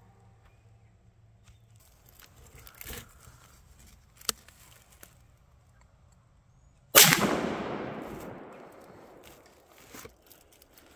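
A single .300 Blackout rifle shot about seven seconds in, its report echoing through the woods and fading over two to three seconds. A brief sharp click comes a few seconds before it.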